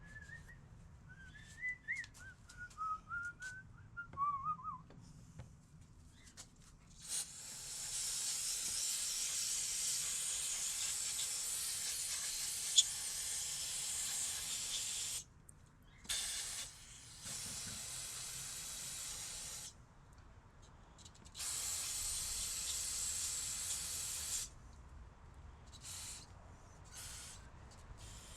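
Aerosol can of carburetor cleaner spraying onto a throttle body in long hissing bursts: one of about eight seconds, then several shorter sprays and a few quick spurts near the end. Before the spraying begins, a person whistles a short wandering tune.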